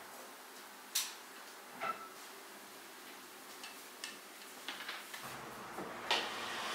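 Scattered light clicks and knocks of hard objects being handled, over faint room tone. The sharpest comes about a second in, and one near two seconds in has a brief ring.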